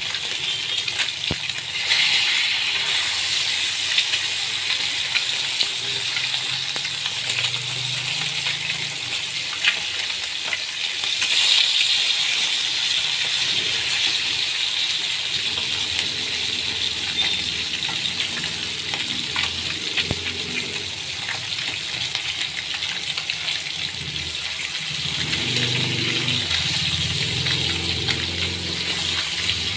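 Marinated fish steaks shallow-frying in hot oil in a pan, a steady sizzle, with occasional clicks and scrapes from a metal slotted turner against the pan.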